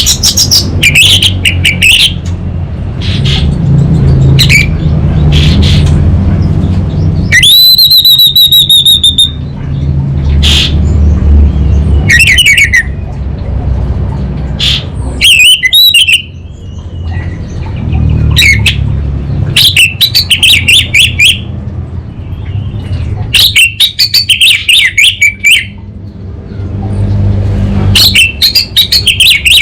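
Orange-headed thrush (anis merah) singing in separate bursts of fast, varied phrases and trills, with one long whistled note about eight seconds in. A steady low hum runs underneath.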